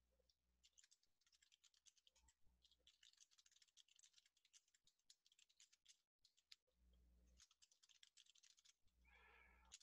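Very faint computer keyboard typing: scattered key clicks as an equation is entered, barely above silence.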